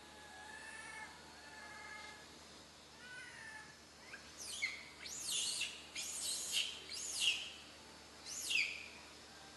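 Baby macaque crying: a run of about five or six shrill cries that slide down in pitch, starting about four seconds in, the crying of an infant wanting to nurse. Faint bird chirps come before them.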